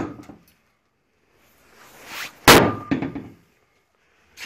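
A small sledgehammer strikes a metal car hood coated with a Titan protective rubber-type coating. There is one hard clang about two and a half seconds in, with a short metallic ring and a brief rattle after it.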